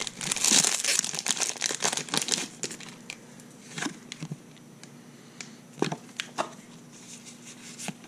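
A Pokémon XY Evolutions booster pack's foil wrapper crinkling and tearing as it is ripped open, dense for the first two seconds or so. After that come quieter handling noises of the cards being pulled out and shuffled, with a few soft clicks.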